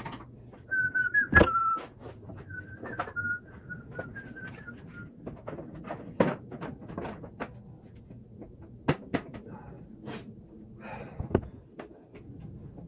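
A person whistling a few wavering notes over the first few seconds, among scattered knocks and clunks.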